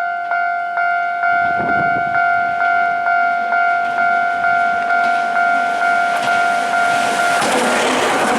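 Japanese railway level crossing alarm bell ringing, a steady electronic ding about twice a second. About seven seconds in, the bell stops being heard and the running noise of an approaching train comes up.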